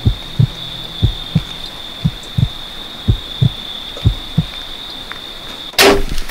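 Heartbeat sound effect: paired low thumps, about one beat a second, under a steady high-pitched tone. Near the end a sudden loud snap cuts across it.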